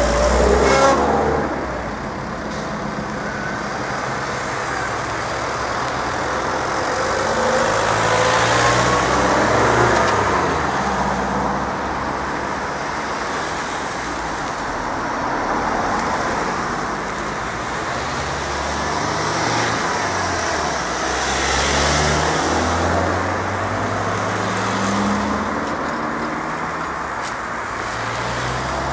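Cars and a van driving past one after another, their engine and tyre noise swelling and fading with each pass. The loudest pass comes right at the start.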